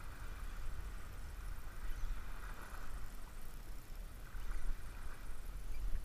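Wind buffeting the microphone in an irregular low rumble, over a faint steady hiss.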